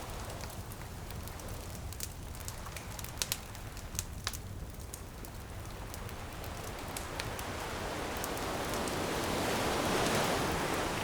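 Bonfire crackling with sharp pops, over steady surf; a wave builds and washes in, peaking near the end.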